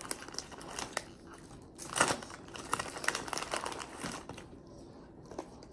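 Crinkly snack bag of potato sticks rustling as hands reach in and take sticks out, with a louder crackle about two seconds in.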